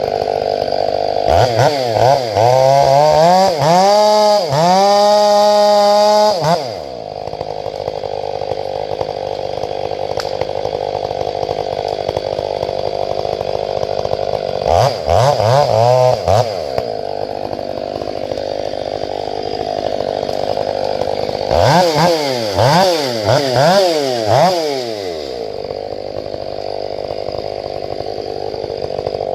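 Gas chainsaw idling and revved to full throttle three times: a long spell a couple of seconds in, a short one around the middle, and a run of quick throttle blips near the end.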